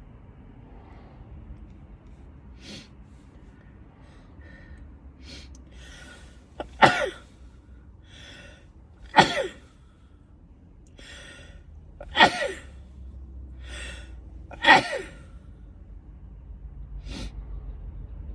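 A woman's allergy sneezing fit: four loud sneezes about two to three seconds apart, each with a sharply falling voice and each led in by catching, gasping in-breaths.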